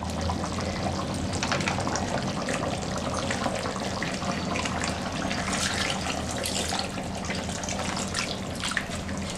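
Thin ground coconut paste poured from a steel mixer-grinder jar into a pot of simmering curry: a steady liquid pour and splash with a few light clinks of the jar, over a steady low hum.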